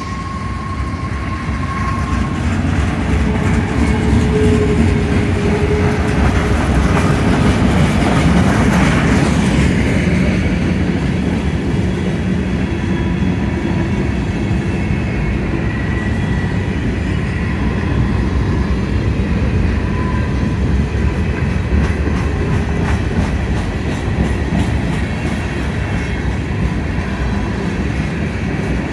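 Union Pacific freight train's cars (boxcars, covered hoppers and tank cars) rolling past, a steady rumble of steel wheels on rail that swells louder over the first several seconds, with faint thin squeals coming and going.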